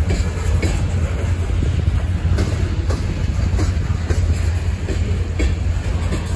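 Freight cars (covered hoppers and tank cars) rolling past close by: a steady low rumble with repeated clicks of the wheels over the rail joints.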